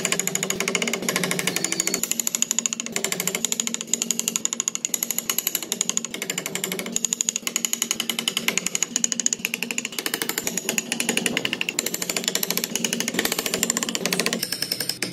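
Handheld power carving tool working wood: a rapid, steady hammering rattle over a constant motor hum.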